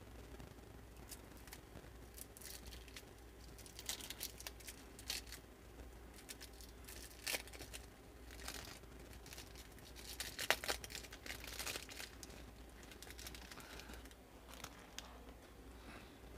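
Cellophane wrapper of a 1983 Topps cello pack being torn open and crinkled by hand. It crackles in short, scattered spells, loudest a little past halfway.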